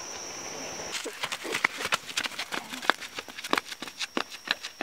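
Quick, irregular footfalls of several children running on a dirt road close by, starting about a second in.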